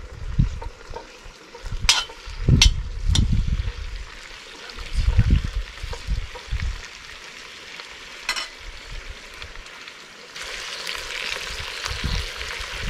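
Goat meat pieces sizzling in a pot over a wood fire, with a metal utensil clicking and scraping against the pot as the pieces are turned, and a few dull low thumps. About ten seconds in the sizzling becomes steadier and louder.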